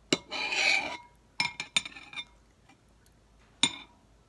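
A short scrape followed by a few sharp clinks of a spoon against a food container, as baby ravioli is scooped out.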